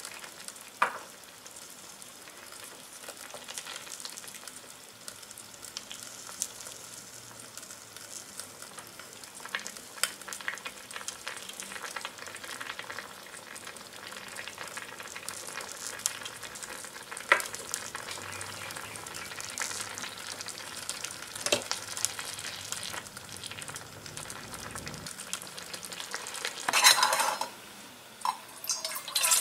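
Tiny clay pot of chicken noodle soup sizzling and simmering on a miniature stove while a small spoon stirs it, with scattered light taps of the spoon against the pot. Near the end a loud clatter of cookware as the pots are moved around on the stove.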